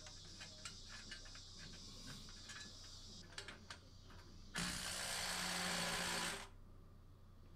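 Quick irregular clicks of a socket ratchet running down a 13 mm fastener on an exhaust bracket. Then, about four and a half seconds in, a power tool runs for just under two seconds with a steady whir.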